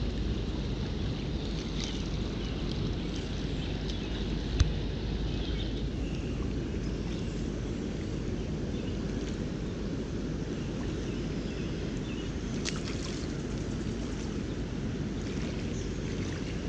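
Steady low outdoor rumble, with a few faint ticks and one sharp click about four and a half seconds in.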